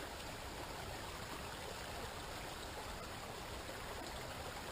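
Small stream running steadily over rocks, an even rushing babble of water.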